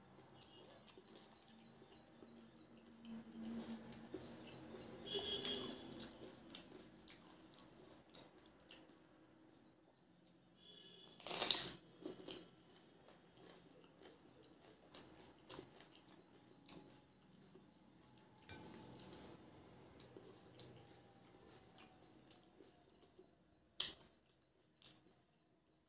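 Close-up eating sounds of pani puri: crisp, water-filled puri shells crunching and being chewed, with many small crackles and clicks. One loud crunch comes about halfway through, and a sharp click comes near the end.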